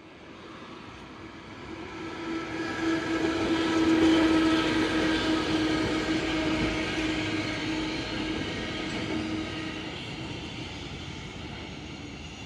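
Randen streetcar Mobo 106 running past on street track: the sound builds as it approaches, is loudest about four seconds in as it passes, then fades as it moves away. A steady hum runs through most of the pass, over the noise of the wheels on the rails.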